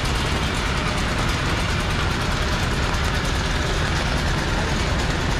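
Rain on a busy city street: a steady hiss of rain and wet traffic over the low rumble of vehicle engines.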